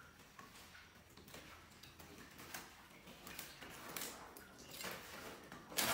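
Large green wrapping leaves rustling and crinkling softly as they are folded and smoothed by hand, with scattered faint ticks and clicks. A sudden louder noise starts right at the end.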